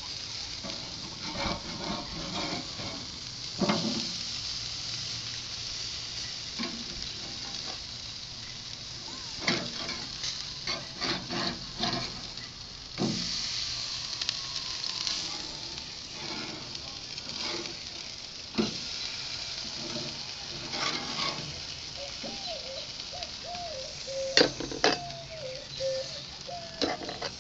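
Burger patties sizzling steadily on a charcoal grill, with a metal spatula clicking and scraping against the grill grate many times as the burgers are moved and flipped.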